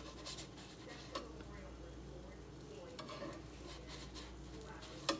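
Pancake batter cooking in a nonstick frying pan with a faint sizzle, while a spatula scrapes and taps against the pan. There is a sharp knock near the end.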